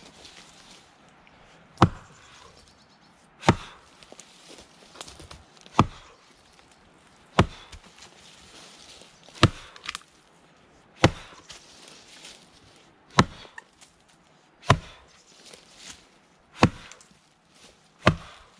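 Brades Tasmanian pattern axe, freshly ground to a 20-degree chisel edge, chopping underhand into a dry fallen log: about eleven sharp blows, one every second and a half to two seconds, with lighter ticks between them.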